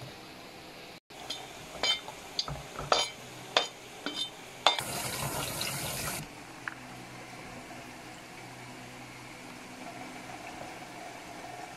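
Cut long beans being rinsed by hand in a metal basin in a stainless-steel sink: splashes and sharp knocks of hands and water against the basin. A tap then runs into the basin for about a second and a half, and softer swishing of water follows.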